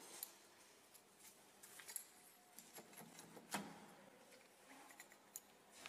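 Near silence: faint room hiss with a few faint, scattered clicks.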